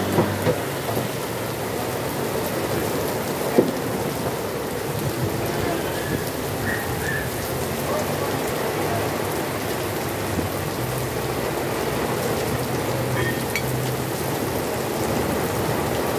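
Heavy rain pouring steadily onto paved ground and puddles: a constant, even hiss of a downpour, with one sharp knock about three and a half seconds in.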